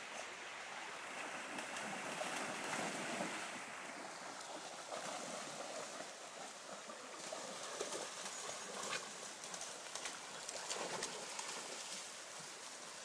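River water running steadily, with irregular splashes and sloshing in the second half from dogs playing in the water.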